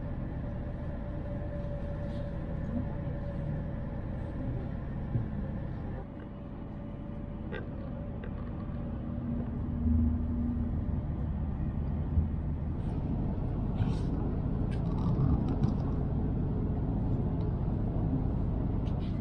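Cabin noise of a Tohoku Shinkansen train at speed: a steady low rumble and rush. The level drops suddenly about six seconds in and builds back up, with a few light clicks and knocks.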